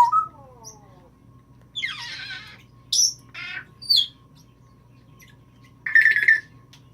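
Timneh African grey parrot calling: a falling whistle at the start, then a run of short raspy squawks and whistles about two to four seconds in, and a louder squawk near the end.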